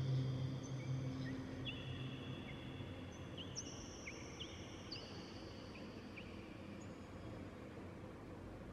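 Soft ambient background music fading out. A low held pad dies away in the first three seconds, while high bell-like chime notes keep ringing one after another, sparser and fainter.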